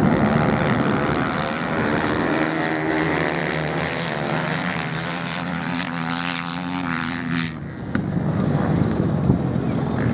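Several off-road motorcycles racing on a sand track, their engines droning together and slowly shifting in pitch as they pass. The sound changes abruptly a little under eight seconds in to a rougher, noisier engine mix.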